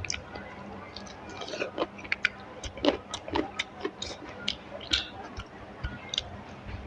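Close-miked eating: irregular wet smacks and clicks of chewing a mouthful of rice and curry.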